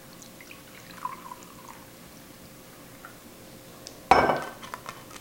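A glass wine bottle of white zinfandel being handled and opened: faint squeaks early on, then one sudden loud sound about four seconds in that dies away over half a second, followed by a few sharp glassy clicks.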